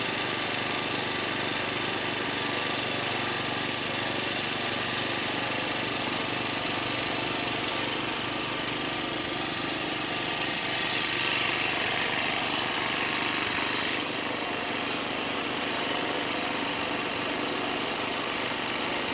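Snowblower's small engine running steadily, a little louder for a few seconds in the middle.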